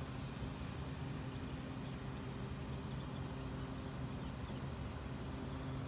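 Steady low mechanical hum at one constant pitch, over a faint even outdoor background noise.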